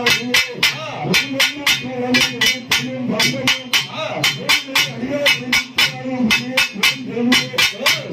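Temple-festival percussion band playing a fast, even beat of sharp strokes, about four a second, over a low wavering moaning tone.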